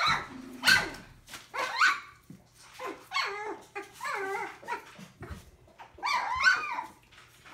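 Young collie puppies, nearly three weeks old, yipping and giving small high-pitched barks while they wrestle in play, in a run of short bursts with little clicks of claws and paper between them.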